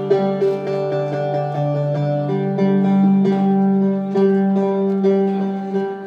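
Oud being plucked: a melodic phrase of single notes, each struck sharply and left ringing, moving from pitch to pitch.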